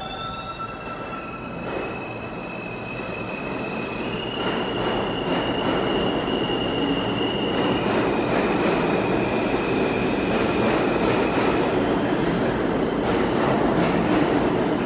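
R160 subway train pulling out of the station and picking up speed, its running noise growing louder. A high whine shifts pitch a couple of times, and wheel clacks over the rail joints come faster near the end.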